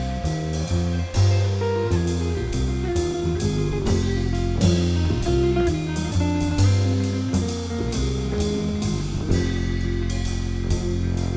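Instrumental break in a song: guitar over a drum kit keeping a steady beat.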